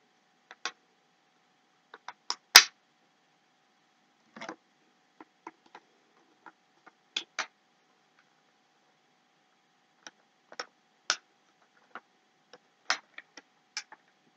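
Hard, flimsy pieces of a superhero silhouette bookend clicking and tapping against each other as they are pushed together and fail to line up. Scattered sharp clicks, the loudest about two and a half seconds in.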